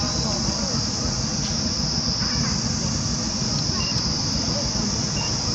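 Steady high-pitched drone of an insect chorus, with a low rumble underneath and a few brief high peeps.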